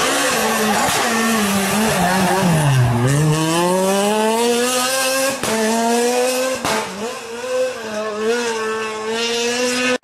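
Renault Clio R3 rally car's 2.0-litre four-cylinder engine. Its revs fall to a low about three seconds in, then rise steadily as it accelerates, with brief drops at gear changes about five and a half and seven seconds in.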